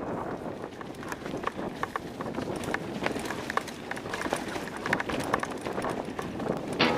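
Mountain bike ridden fast over a rough dirt and stone trail: tyre rumble with frequent clicks, knocks and rattles from the bike.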